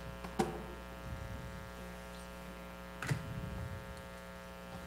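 Steady electrical mains hum with a buzzy edge, with two brief soft knocks, about half a second in and again about three seconds in.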